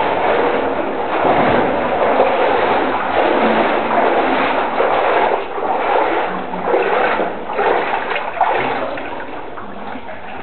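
Water splashing and sloshing as a person swims through a flooded cave passage, growing quieter near the end.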